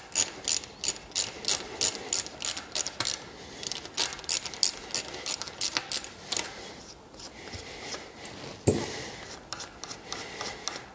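Socket ratchet clicking, about three to four clicks a second, as it is swung back and forth to unscrew a shotgun choke tube; the clicking stops about six seconds in. A single knock follows near the end.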